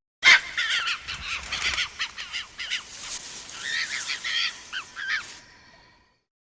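Film sound effect of Compsognathus, the small chicken-sized dinosaur: a rapid flurry of high-pitched chirps and squeaky, warbling calls, some sliding up and down in pitch, that tails off and fades out near the end.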